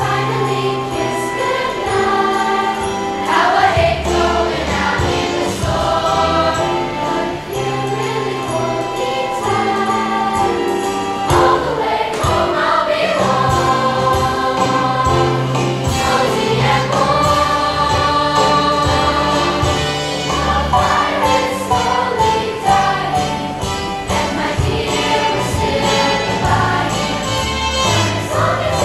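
Children's choir singing in parts, with musical accompaniment underneath carrying a low bass line.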